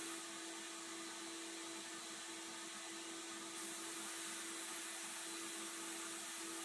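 Sandblast cabinet running: a steady hiss of abrasive blasting from the nozzle as it strips paint off the pressed-steel toy truck cab, with a steady hum underneath.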